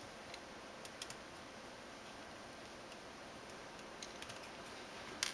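A few faint clicks and taps from hands handling a laptop LCD panel and its metal hinge brackets, over low steady hiss, with one sharper click near the end.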